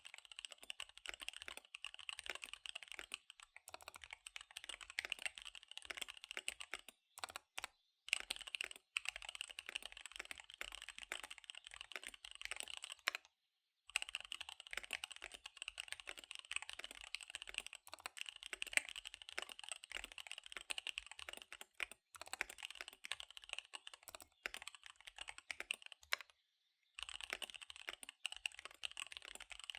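Fast typing on a KBD75 V3 mechanical keyboard with SP-Star Dark Magic Girl tactile switches and DSA keycaps: a dense, rapid stream of key clacks. There are short pauses about seven seconds in, about thirteen seconds in, and about twenty-six seconds in.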